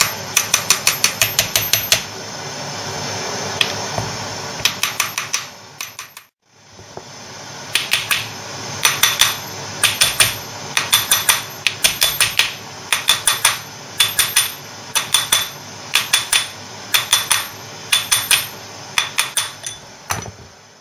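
Hammer striking a drift to drive a taper roller bearing outer race home into a Land Rover LT76 transfer box casing: runs of rapid, sharp metallic taps, about one run a second, with a short break about six seconds in.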